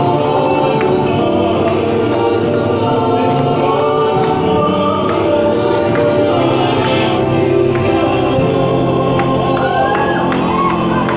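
A church choir and congregation singing a gospel hymn together in harmony, at a steady, full level with long held notes.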